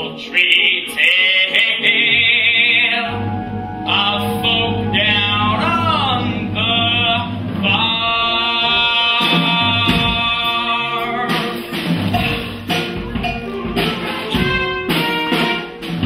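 Live musical-theatre number: cast voices singing over an instrumental accompaniment, with long held notes that waver in vibrato, and regular percussion hits in the second half.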